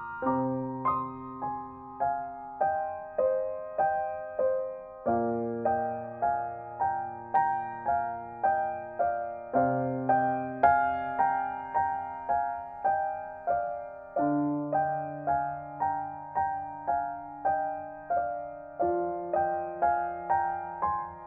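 Gentle solo piano music: a steady broken-chord figure of about two notes a second over low notes that change every four to five seconds.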